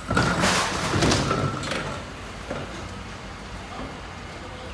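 Forklift handling a large wooden crate at a truck's loading dock: a loud clattering scrape in the first two seconds, then a few lighter knocks over quieter running.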